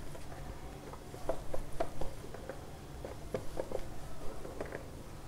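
Wooden rolling pin rolling out a stuffed paratha on a steel plate: irregular light taps and clicks as the pin works over the dough and knocks against the plate.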